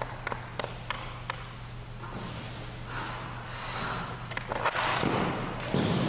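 Hockey goalie skate blades scraping and carving on the ice as the goalie pushes and slides across the crease, with a few sharp clicks and taps of stick and pads early on. The scrapes swell and are loudest near the end, over a steady low hum.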